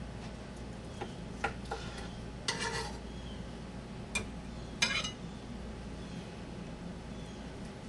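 Kitchen utensils and dishes being handled: a few light clicks in the first two seconds, then two short scrapes about two seconds apart, with another click between them.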